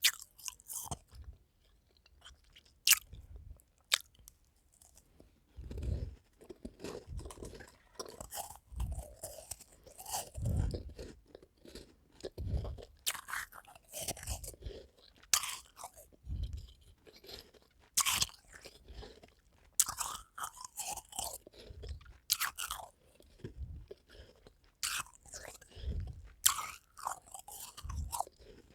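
A person biting and chewing crunchy white ice: repeated sharp crunches in clusters, with short pauses between bites and dull low thuds of chewing underneath.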